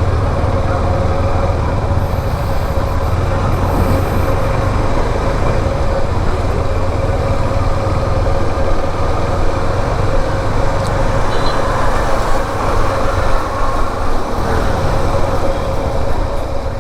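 A vehicle on the move at a steady pace: a continuous low rumble of engine and road noise with a faint steady hum. It cuts off abruptly at the end.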